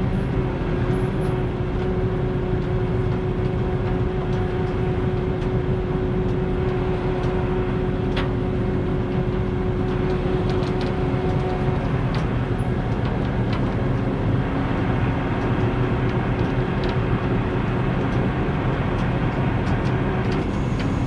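Heavy truck engine running steadily, with a steady whine over it that stops about halfway through and a few light clicks.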